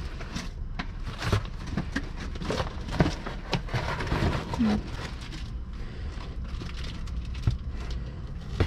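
Gloved hands rummaging through cardboard boxes and egg cartons in a dumpster: rustling and scraping of cardboard with many small knocks and clicks as cartons are lifted and set down.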